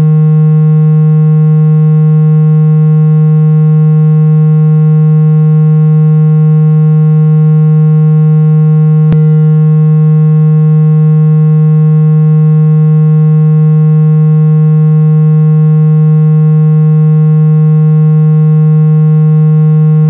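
A steady, loud, low electronic tone with a buzzy edge, held at one pitch without change, played as an ear-'opening' therapy sound. A faint click about nine seconds in.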